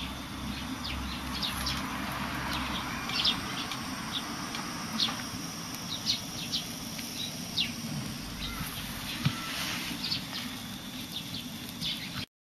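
Steady hiss from a gas canister stove burning under a mini grill, with small birds chirping briefly and repeatedly throughout.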